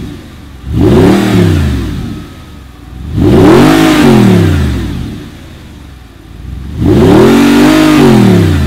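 Audi R8 engine free-revved while standing: the tail of one blip dies away at the start, then three more blips follow, each rising and falling in pitch. The last is held near the top for about a second and a half before dropping back to idle.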